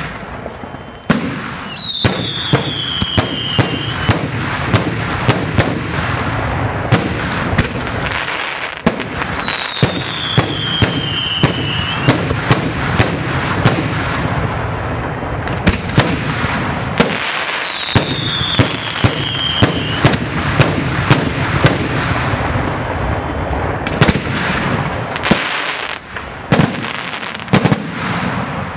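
Aerial fireworks display: a dense run of shell bursts and sharp bangs, several a second, over a continuous crackle. Three falling whistles, each about two seconds long, sound roughly eight seconds apart.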